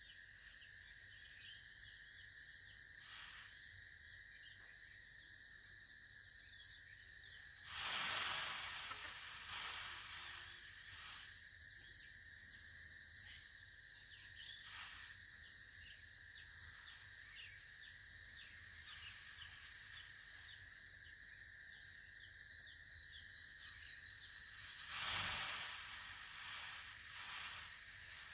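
Peacock rattling its shaken tail feathers, a dry hiss-like rattle, as a threat display meant to drive other birds off. It comes twice: a longer rattle about eight seconds in and a shorter one near the end. Crickets or other insects chirp steadily throughout.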